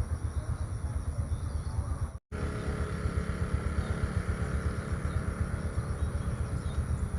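Outdoor ambience dominated by a low, fluttering rumble, with faint bird chirps above it. A brief, total dropout about two seconds in looks like an edit splice.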